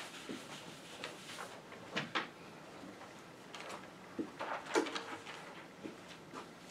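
Footsteps across a classroom floor: a few soft, scattered steps and light knocks as a person walks along a blackboard, with a brief squeak about five seconds in.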